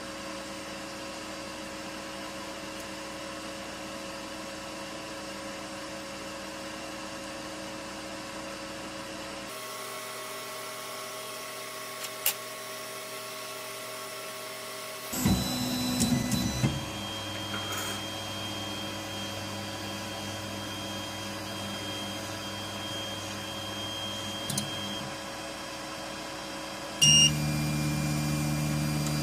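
Core200 3D printer running through its start G-code: a steady fan hum with motor tones that shift several times as the stepper motors move, and a few short clicks. Near the end a sudden knock is followed by a louder, lower motor tone.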